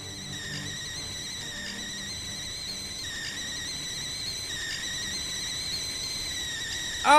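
Stovetop whistling kettle beginning to whistle as the water nears the boil: a thin, steady high whistle that wavers slightly. Right at the end a much louder, lower-pitched shrill tone breaks in.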